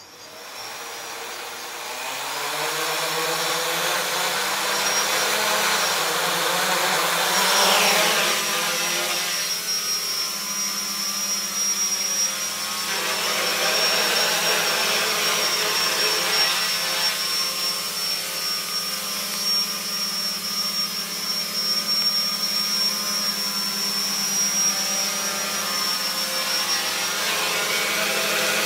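Homebuilt quadcopter's four brushless motors and propellers spinning up and lifting off, then hovering with a steady buzzing whine. Two swells of rushing propeller noise come and go, about 8 and 14 seconds in.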